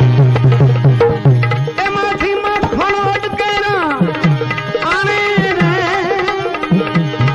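Instrumental passage of a Gujarati devotional bhajan: tabla strokes, with the bass drum's pitch gliding, under a melodic instrument playing a line with bends and wavering notes.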